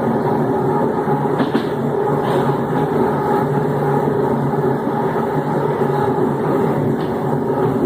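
Electric train unit TUE 1726 running, its traction motors giving a steady growl of several held tones over the rumble of the train.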